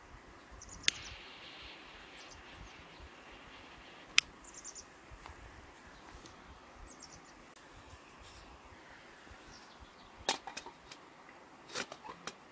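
Two sharp clicks of a long-neck lighter, about three seconds apart, as the Trangia spirit burner is lit. Near the end, a few metallic knocks and clatters as an aluminium Trangia pot is set onto the stove.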